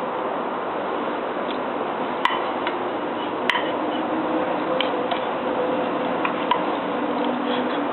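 Scattered light clinks of a spoon against a bowl, a few sharp ticks a second or so apart, over a steady background hiss.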